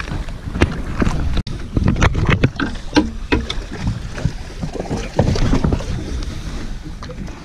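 Wind on the microphone and water slapping against a small boat's hull, with irregular knocks and bumps from people moving about on board.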